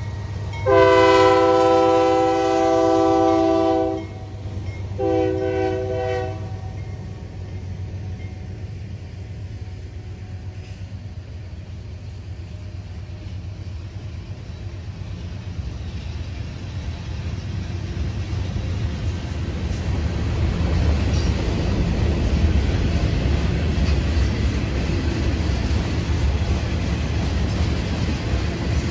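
Union Pacific diesel freight locomotive's horn sounding a long blast about a second in and a shorter one at about five seconds. Then the steady noise of tank cars and covered hoppers rolling past, growing louder over the second half.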